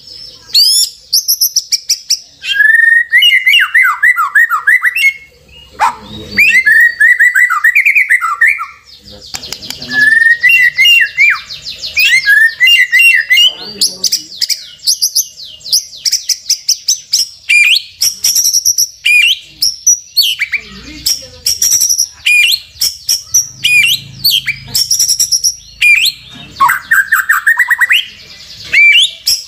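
White-rumped shama (murai batu) song played as a lure recording to provoke a caged shama into singing: loud, continuous and varied, with rapid runs of high, sharp notes alternating with lower warbled phrases every few seconds.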